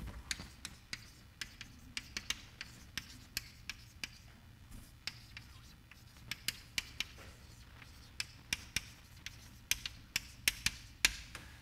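Chalk writing on a blackboard: a run of irregular, sharp taps and clicks, a few each second, as the chalk strikes and drags across the board.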